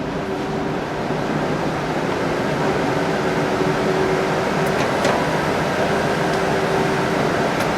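Steady mechanical hum and ventilation noise of a car assembly hall, with a faint held tone and a few light clicks.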